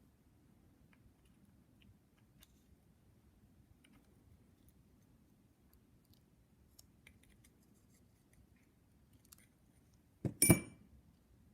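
Bench work on small metal parts: faint scattered clicks, then a sharp double metallic clank with a brief ring about ten seconds in.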